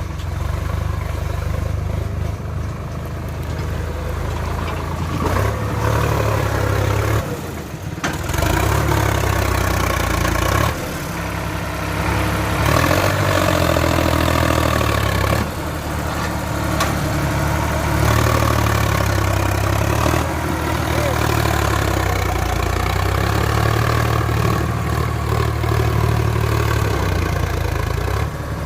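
Heavy diesel machinery engine running loud and steady, its note swelling and easing every few seconds as it works under changing load, with a brief dip about eight seconds in.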